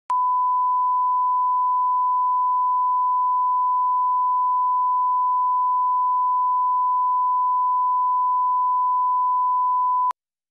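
Steady 1 kHz reference test tone: a single pure beep held at one pitch for about ten seconds, starting and stopping with a click.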